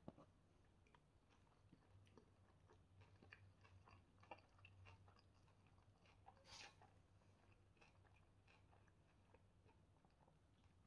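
Faint, close-miked eating sounds: a person chewing flatbread and chicken shawarma, with small wet mouth clicks throughout. A brief louder crunch or rustle comes a little past halfway. A low steady hum runs underneath.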